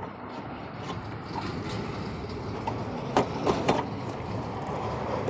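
Car headlight assembly being slid out and lifted free of its mounts: a few sharp clicks and knocks, three close together about three seconds in, over a steady low background rumble.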